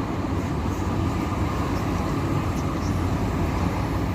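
Steady low rumble of road traffic and vehicle engines in slow-moving, congested traffic.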